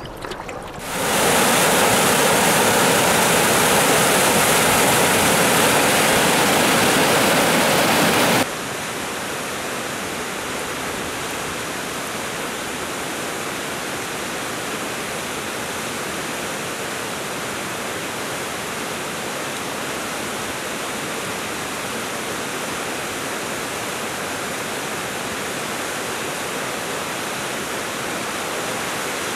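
River rapids: white water rushing over rocks in a steady roar of noise. The rush is loud at first, then drops suddenly to a lower, even level about eight seconds in, as if heard from further off.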